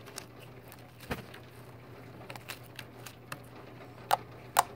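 Homemade glue slime being squished and pulled by hand, giving scattered small sticky clicks and pops, with two louder pops near the end. A steady low hum runs underneath.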